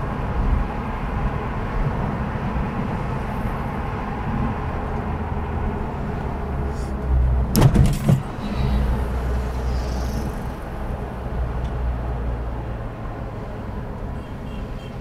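Car driving through city streets: a steady low engine hum and tyre noise. About halfway through comes a brief, loud clatter.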